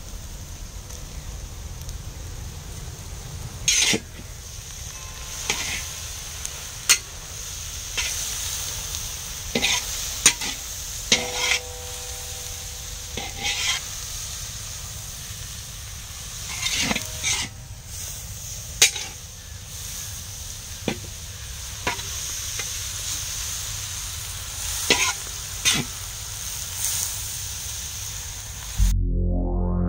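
Vegetables sizzling in a large metal kadhai while a long metal spatula stirs them, scraping and knocking against the pan at irregular intervals, a few knocks ringing briefly. Music comes in near the end.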